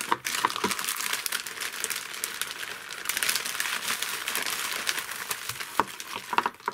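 Clear plastic bag crinkling and crumpling in hands as parts are unwrapped from it, a continuous dense crackle with many sharp snaps.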